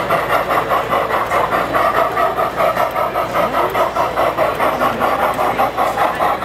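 Fn3-scale model 4-4-0 steam locomotive chuffing steadily as it runs, about four to five even chuffs a second.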